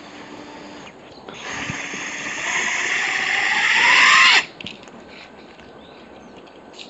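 Motors and propellers of a small ducted coaxial copter spinning up on the ground: a loud rushing whir that grows louder for about three seconds, with a whine rising in pitch just before it cuts off suddenly.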